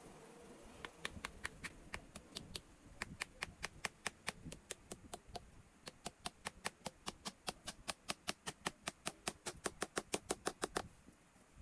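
A quick, even run of light, sharp taps, about five or six a second, broken briefly around the middle and stopping near the end.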